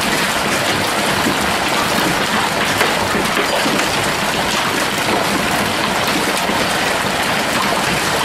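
Heavy hail falling, a steady, dense patter of countless small stones striking the ground, cars and roofs.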